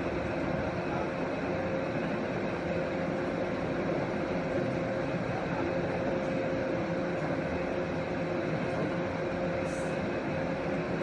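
Fiber laser marking machine running: a steady hum and whir with a faint held tone, unchanging in level.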